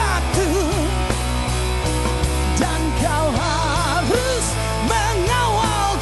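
Male singer performing live with a rock band. His voice wavers in vibrato over steady bass notes and drums.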